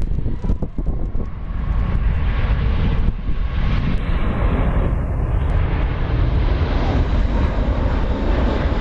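Airplane engines running during a landing in strong wind, with heavy gusts buffeting the microphone and a few knocks in the first second.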